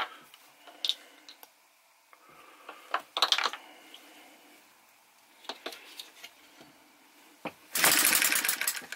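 Metallic clicks and knocks as the flywheels of an Enjomor model hit-and-miss engine are turned by hand, followed near the end by a short, loud, fast rattle. The engine does not fire.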